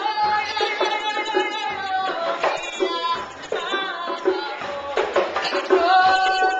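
Music: long held melodic notes, slightly gliding in pitch, over a steady beat of drum or percussion strikes.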